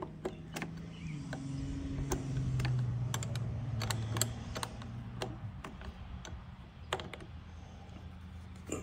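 Irregular small metallic clicks and taps of a wrench and nut on a lawn tractor's battery terminal bolt as the negative cable is tightened. Under them runs a low steady hum that swells for a few seconds near the start.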